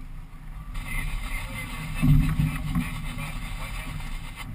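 Heavy thumps in the boat's cockpit as a landed albacore is clubbed, the loudest about two seconds in, over steady wind and water noise.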